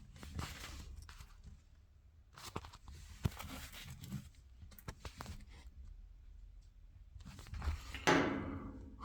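Faint clicks and knocks of hands working inside a Ferroli gas boiler, unplugging wiring connectors from its circuit board, with one sharper click about three seconds in and a brief louder rasp near the end.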